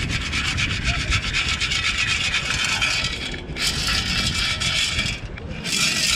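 Beach sand being shaken through a sieve scoop, a gritty rasping hiss in three bursts: a long one of about three seconds, then two shorter ones.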